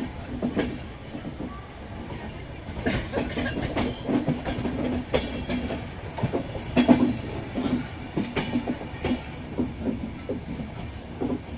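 Wheels of an Indian Railways passenger coach clattering over rail joints and points as the train rolls into a station, with a steady rumble and irregular knocks, heard from the coach's open door.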